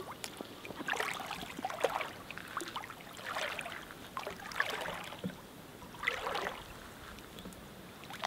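Footsteps wading through ankle-deep lake water, each step a short slosh, about five of them spaced a second or more apart.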